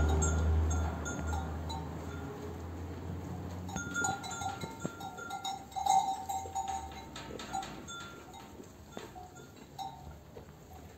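Sheep neck bells clinking irregularly as the flock moves and feeds, with short ringing notes clustered about four to seven seconds in. A low rumble in the first couple of seconds fades away.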